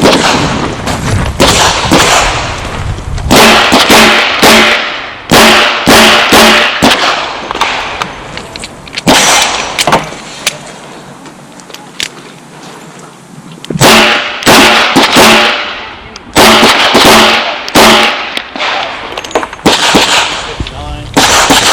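Chiappa Rhino .38 Special revolver firing strings of shots in quick groups, with steel targets ringing after several of the hits. There is a quieter pause of several seconds between the two main strings.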